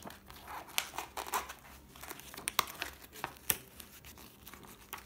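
A loose paper card being slid off a cardboard slipcase and handled, rustling and crinkling with irregular sharp crackles and taps. The loudest two come about two and a half and three and a half seconds in.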